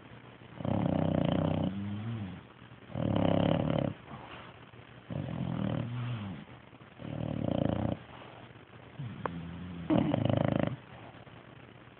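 Slow, regular snoring from a sleeper: about five loud snores, one every two seconds or so, each lasting about a second, with softer breathing in between.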